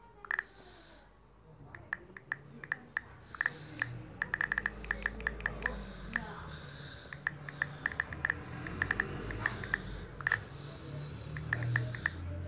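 Key-press clicks of a smartphone's on-screen keyboard as a message is typed and deleted: many short, identical clicks at irregular intervals, with a quick run of them about four to five seconds in, over a low background hum.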